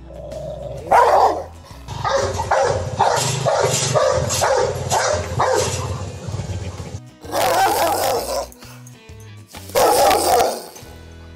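Rottweilers barking: one loud bark, then a fast run of barks, about two or three a second, then single loud barks, over background music.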